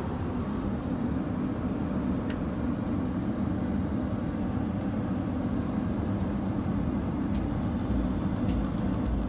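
Steady in-flight cabin noise of an Airbus A320neo heard inside the lavatory: a low, even rumble of airflow and engines with a thin high-pitched whine above it.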